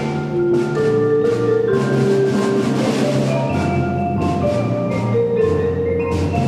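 Percussion ensemble playing, led by a Majestic marimba struck with mallets: held pitched notes, low and mid, changing every second or so, with sharp strokes on top.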